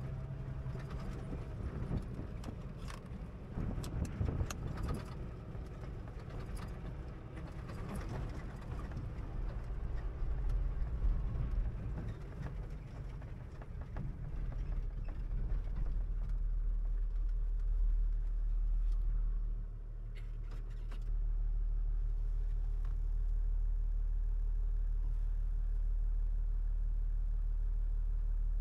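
Engine of an old four-wheel-drive heard from inside the cab, running as it drives slowly over rough dirt, with the body and loose gear rattling and knocking. About two-thirds of the way in the rattling dies away and the engine settles to a steady idle as the vehicle stops.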